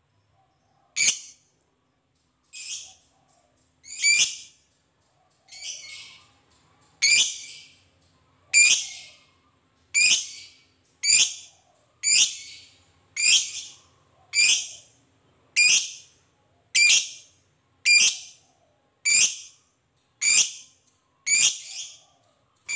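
Lovebird giving a long series of short, shrill, rippling chatter calls, about one every second and a quarter. The first few calls are softer than the rest.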